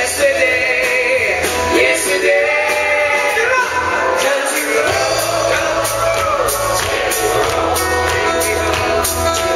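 A country-rock band playing live: a male voice singing over acoustic guitar, bass and a steady drum beat.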